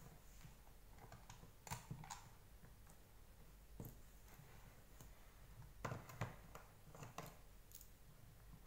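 A few faint, scattered clicks and taps of a precision screwdriver and small plastic parts and screws being handled on a tabletop while a vacuum floor head is taken apart.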